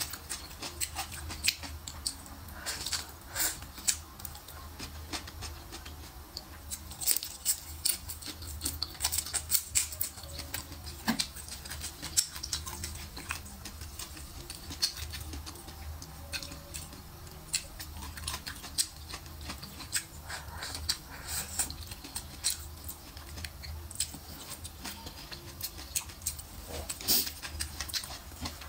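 Close-miked chewing of chili-fried pork and shrimp: a run of irregular wet mouth clicks and smacks, over a faint low hum.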